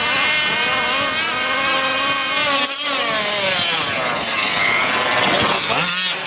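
Small two-stroke gas engine of a 1/5-scale RC buggy revving hard, its high buzzing pitch climbing and falling repeatedly as the throttle is worked.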